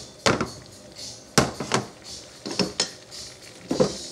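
A spoon knocking and scraping against a frying pan as butter is pushed around: about six sharp clanks, irregularly spaced, over the faint sizzle of butter melting in hot oil.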